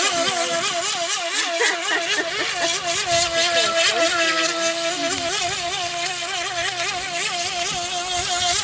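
Small radio-controlled boat's motor whining at a high pitch. The pitch wavers up and down over and over as the boat runs through waves.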